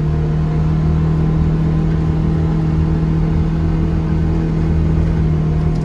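Motor vehicle engine running at a steady speed: a constant low hum with rumble beneath it.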